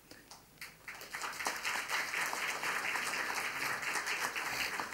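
Audience applauding: a few scattered claps about half a second in, swelling within a couple of seconds into steady, dense applause.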